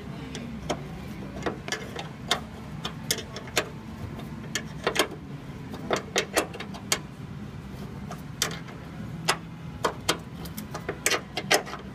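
Irregular sharp clicks and taps, some in quick clusters, from hands working a bolt on a 1965 Mustang's hood hinge. A steady low hum runs underneath.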